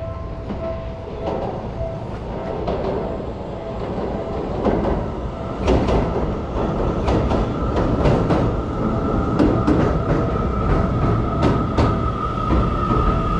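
Electric commuter train running along the tracks beside the platform, with a rumble and wheels clacking over rail joints. From about halfway through, a steady high whine rises in with the clacks.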